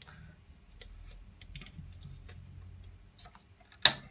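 Light clicks and taps from handling a hard drive and its drive tray, with one sharp click near the end.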